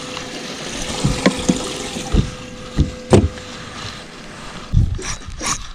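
Water splashing and sloshing in a boat, with several sharp knocks on the hull.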